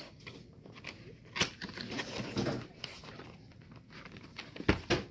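Cardboard product box being opened by hand, its end flap pulled out: scattered rustling and light taps, a sharp knock about a second and a half in, and a louder thump near the end.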